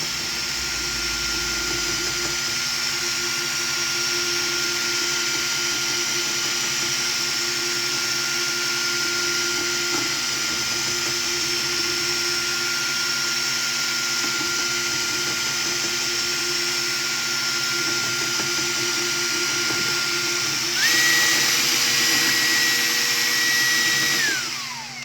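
Electric drill spinning a mixing paddle through two-part epoxy resin in a bucket, its motor whining at a steady speed. Near the end it speeds up to a higher, louder whine for a few seconds, then winds down and stops.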